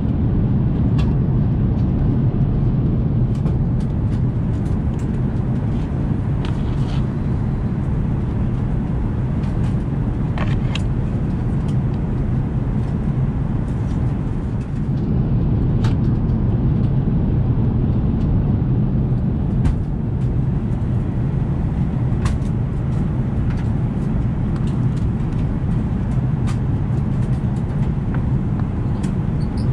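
Steady low rumble of an Airbus A380's cabin noise in flight, with a few light clicks and rustles of paper cards being handled now and then.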